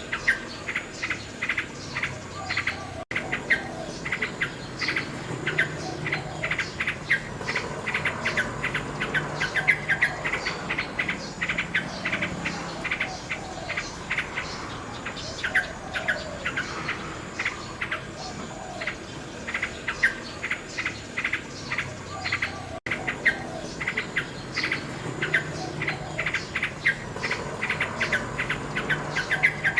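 Nightingale song: dense runs of rapid, sharp repeated notes with softer warbled phrases below them, cutting out briefly twice.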